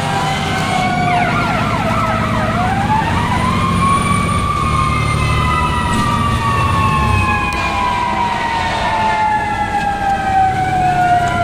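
Fire engine siren heard from inside the cab, wailing in long slow rises and falls of pitch, with a quick run of fast yelping sweeps about a second in. The truck's engine rumbles low underneath.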